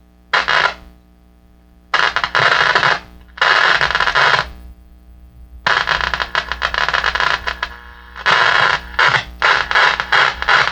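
1940 Firestone Air Chief tube radio switched on, its speaker giving a steady hum broken by loud bursts of scratchy static that cut in and out abruptly, coming quickly one after another in the last few seconds. The repairer suspects a short in the tuner.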